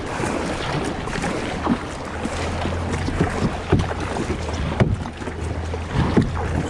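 Kayak paddle strokes dipping and splashing in the water in quick succession, over a steady low rumble of wind on the microphone.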